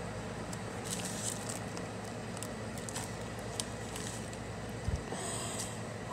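A person blowing breath out through pursed lips, a soft hiss about a second in and again near the end, over a steady low hum, with a low thump just before the second breath.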